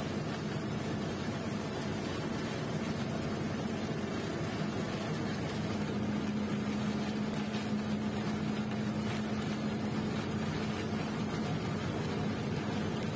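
SBSTC express bus under way, its engine drone and road noise heard from on board. The low hum is steady and grows stronger about halfway through.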